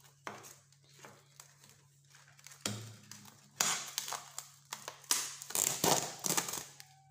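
Crinkling and rustling of a covering being handled and pressed over a food container: a few light clicks, then a string of crackly bursts from about three seconds in until shortly before the end.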